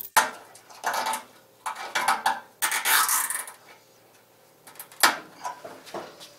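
Scattered light clinks, taps and rattles of metal and plastic parts as a car's front bumper cover and headlight are handled and fitted, with a brief scraping rustle about three seconds in.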